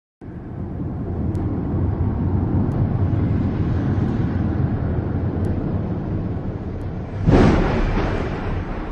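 Low, steady rumbling sound effect opening the music video, with faint ticks about every second and a half. About seven seconds in, a sudden loud noisy surge fades out over a second or two.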